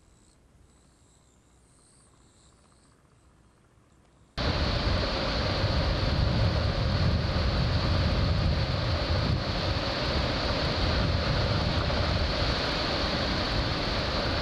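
Near silence, then about four seconds in a sudden cut to loud, steady rumbling noise of strong typhoon wind and rough surf on a sea coast.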